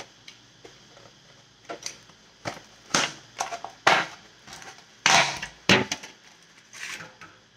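Irregular crinkling and crunching from handling pomelo in a plastic container, with louder crackles about three, four, five and six seconds in and small ticks between.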